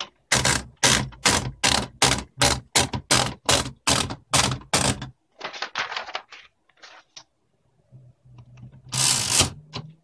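Keys of a UNIS tbm de luxe manual portable typewriter being struck about a dozen times at a steady pace of roughly three a second, each typebar hitting the platen with a sharp clack. These are followed by a run of lighter mechanical clicks, and near the end by one longer rasping noise from the typewriter mechanism.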